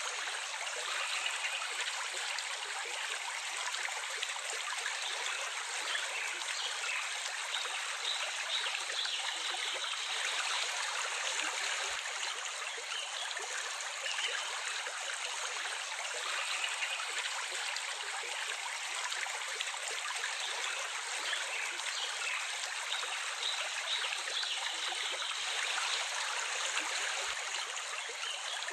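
Water of a small stream running and trickling steadily, with no low rumble.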